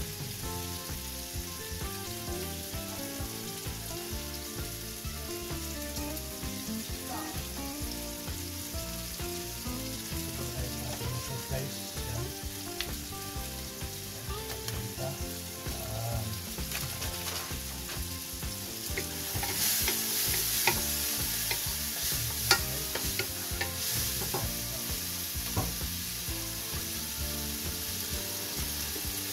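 Chopped tomatoes, onions and garlic sizzling as they sauté in oil in a nonstick pan. The sizzle grows louder and hissier about two-thirds of the way in, with a few sharp clicks after it.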